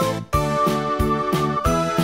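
Upbeat background music with a steady beat, about three beats a second, under a held melody note.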